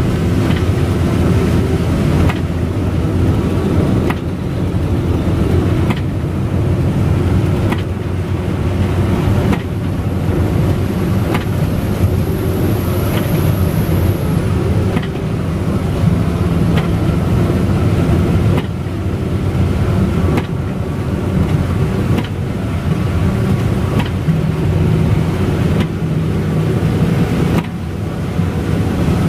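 Steady engine drone and road noise inside a coach bus driving on a wet highway in rain, with a faint regular beat about every two seconds from the windscreen wipers.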